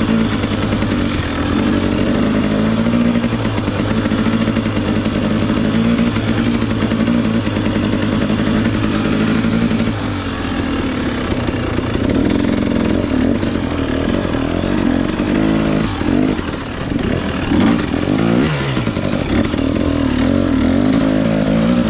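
Two-stroke 300 cc enduro dirt bike engine running hard on a rough trail, engine speed rising and falling with the throttle. About three quarters of the way through there are several quick revs up and down.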